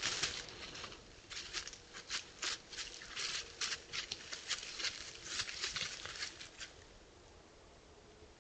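A quick, irregular series of short rustling, crackling sounds, several a second, that stop about seven seconds in, leaving a faint steady hiss.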